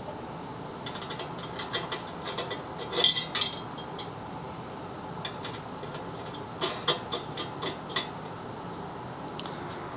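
Socket ratchet clicking as a 17 mm bolt on the steel engine-stand arm is turned, in two runs of quick clicks: the first, loudest, from about a second in to halfway, the second shorter, later on.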